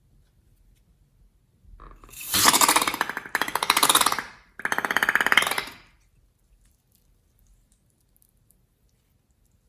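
Slime being squeezed, with air forced out through it in three loud bursts of very rapid crackling flutter, about two to six seconds in.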